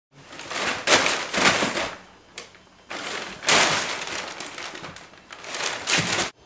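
Crumpled paper rustling and crackling as kittens scamper and pounce through it, in irregular loud bursts that stop suddenly near the end.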